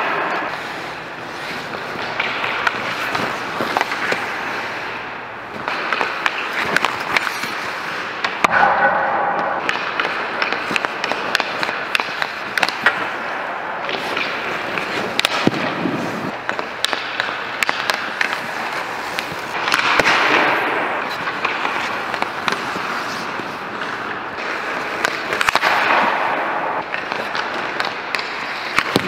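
Ice hockey practice: skate blades scraping and carving the ice in several longer swells, under frequent sharp cracks and clacks of pucks being shot off sticks and striking goalie pads and the boards.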